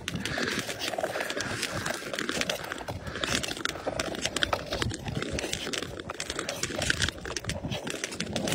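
Ice skate blades scraping and clicking across clear black ice on a frozen lake, stroke after stroke, with the ice crackling and ticking under them.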